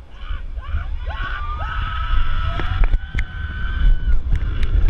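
Riders on a Vekoma suspended looping coaster yelling, then one long high scream held for about three seconds, as the train drops. Under it are a steady low rumble of wind on the microphone and the running train, and sharp rattling clicks from the train in the second half.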